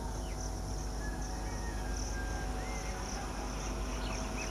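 Indian Railways EMU electric commuter train approaching slowly, a steady electric hum with a low rumble beneath it. A high pulsing insect buzz runs over it, with a few faint bird chirps.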